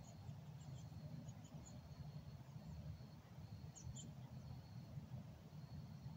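Quiet outdoor ambience: a steady low rumble under a thin high buzz that comes and goes, with faint scattered high chirps, a small cluster of them about four seconds in.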